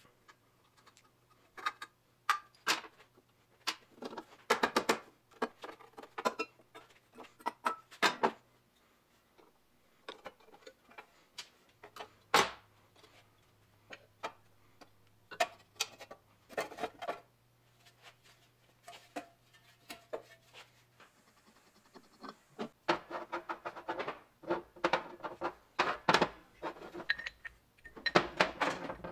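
Metal engine parts and hand tools clinking, knocking and scraping as an early 1920s Willys Knight sleeve-valve engine is taken apart: irregular clicks and clatter, with a denser run near the end.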